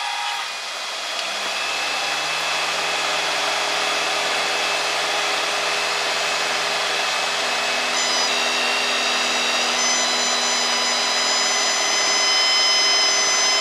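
Single-engine Cessna's engine and propeller heard inside the cabin over the headset intercom, the steady drone rising about a second in as power comes up for a power-on stall. A high whine joins the drone and grows stronger about eight seconds in.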